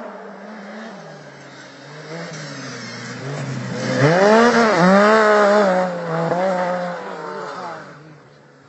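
A racing snowmobile's engine approaches and passes close by, revving up and down. It is loudest about four to six seconds in, then fades away near the end.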